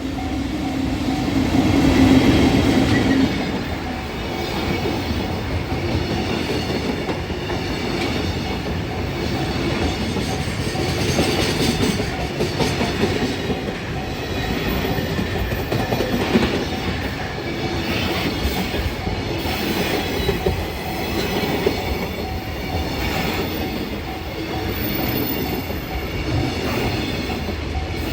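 Freight train wagons rolling past behind an EF65 electric locomotive, a continuous rumble of steel wheels on rail with clacking over the joints and some wheel squeal. The sound is loudest about two seconds in, then holds steady.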